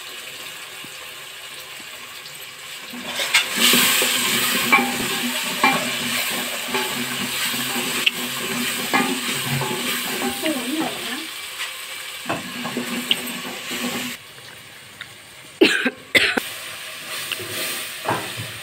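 Onion-and-tomato masala sizzling as it fries in oil in a metal pot, stirred with a wooden spoon that clicks against the pot's sides. The sizzling grows loud about three seconds in and drops away sharply about three-quarters through, followed by a few loud knocks.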